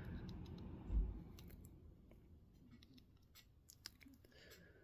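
Light scattered clicks and handling noise from a folding knife being turned over in the hands, with a dull bump about a second in.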